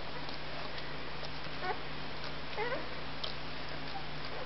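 Faint, high squeaks from a one-week-old Berger Picard puppy, two short rising squeals about a third and two thirds of the way through, as it crawls toward its mother.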